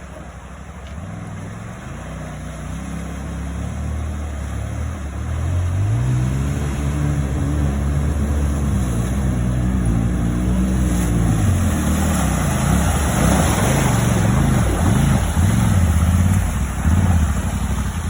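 Off-road vehicle's engine revving up and down as it pushes through a deep river, growing louder as it comes closer. About halfway through, a rushing splash of water joins the engine.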